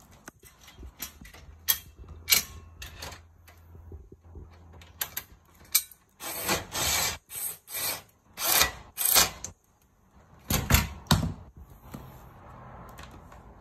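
Hand assembly of a metal roof cargo basket frame: parts and screws handled, with scattered clicks and knocks. In the middle comes a run of about six short rasping strokes, about two a second, as screws are worked into the middle bar. Two louder knocks come a little after.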